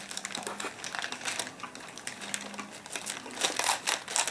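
Paper wrapper of a shawarma crinkling in the hands while people bite and chew, a run of small crackles and clicks that grows busier in the second half.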